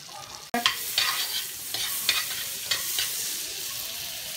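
Fat sizzling and foaming in a kadai while a steel spoon stirs it and scrapes against the pan several times. The sizzle starts suddenly about half a second in.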